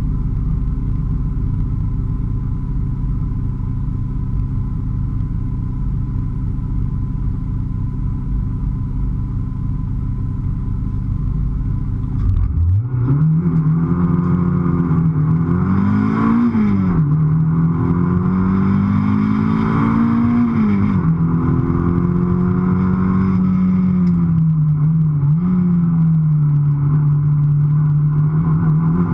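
Naturally aspirated Toyota MR2 engine heard from inside the cabin: it is held at steady revs for about twelve seconds, then the car launches and the revs climb. The pitch drops sharply twice at the upshifts, then the engine runs at a fairly steady pitch with a brief dip near the end.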